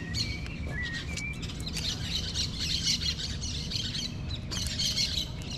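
Birds in the trees calling: many short high chirps and squawks overlapping, with a few short whistled notes in the first second.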